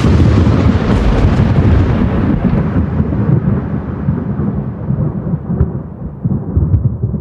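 Thunder sound effect: a long, deep rumble that follows a sharp crack and slowly dies away.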